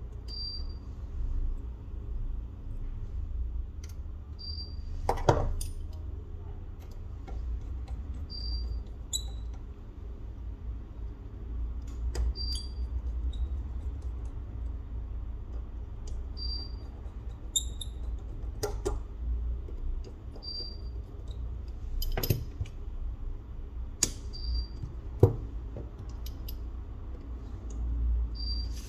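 Small clicks and taps from tools and phone parts being handled, over a steady low hum, with a short high chirp repeating about every four seconds.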